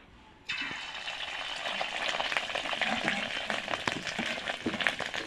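Spiced, flour-coated rohu fish roe frying in hot oil in a kadai. The sizzling, full of fine crackles, starts abruptly about half a second in and keeps on steadily.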